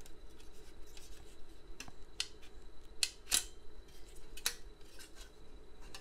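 Metal clicks and scrapes as a PCIe card is slid out of its slot in a Dell PowerEdge R820 riser cage, the card's steel bracket rubbing against the cage. The sharpest clicks come about three seconds in and again a second or so later.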